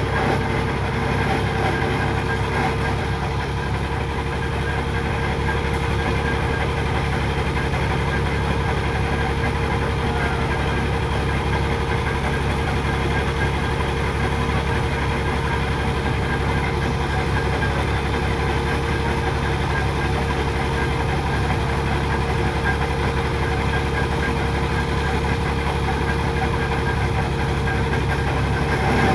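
Engine of piling equipment running steadily at constant speed, a continuous low rumble with a steady whine above it and no hammer blows.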